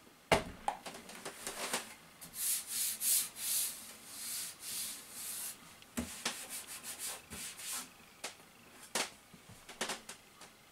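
Rustling and rubbing of packaging and handling noise as a newly unboxed Samsung laser printer is worked over, with a sharp knock just after it begins and scattered clicks and taps later.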